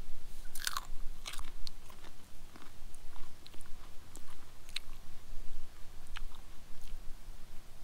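A person chewing a raw clove of garlic, with irregular crunches close to the microphone.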